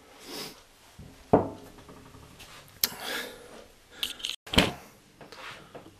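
Workshop handling noises: a heavy cast-iron bench plane, a Juuma No. 6, is set down on a cloth on a wooden workbench and tools are picked up, giving three separate knocks with rubbing between them, the sharpest a click about four and a half seconds in.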